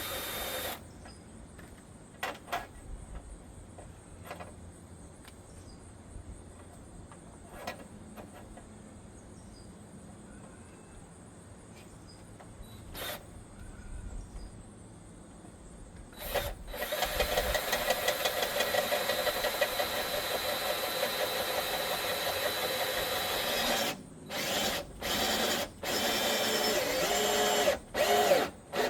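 Power drill driving gutter screws: after a quiet stretch with a few scattered clicks, it runs steadily for about eight seconds, then in several short trigger bursts near the end.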